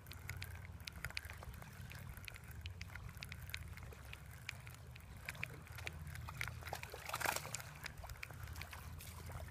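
Faint water sloshing and trickling, with scattered light clicks and ticks, as a small bluegill hooked on a topwater popper is brought in from a pond. A brief louder splash comes about seven seconds in, over a low steady rumble.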